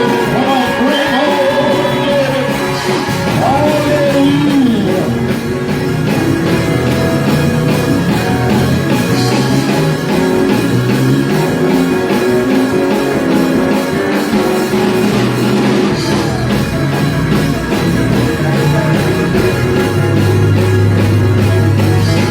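A song with singing over a rock-style band with drums, played loud and steady.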